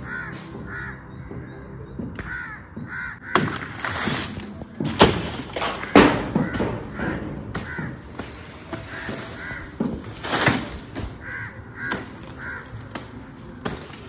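Crows cawing repeatedly in short calls. Several loud, sharp bursts of rustling and cracking come over them from about three seconds in.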